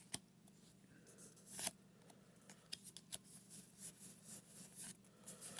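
Pokémon trading cards being handled and slid against one another while being sorted: a sharp click near the start, a short rustle about a second and a half in, then many faint small clicks and rustles.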